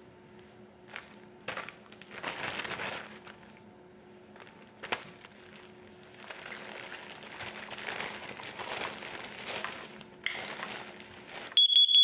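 Clear plastic bag of a CO-alarm test kit crinkling and rustling as it is worked over a carbon monoxide alarm. Near the end the alarm sounds a loud, high-pitched electronic beep: the alarm going off under test.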